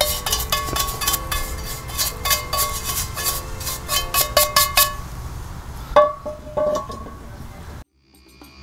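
A bristle brush scraping quickly around a metal frying pan, sweeping roasted gold concentrates out of it, over background music with plucked-string notes. The scraping stops about five seconds in, the music carries on, and the sound cuts out briefly near the end.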